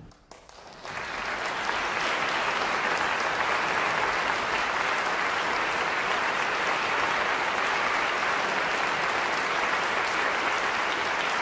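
Concert audience applauding after a string quartet performance ends: the applause breaks out just under a second in and then holds steady.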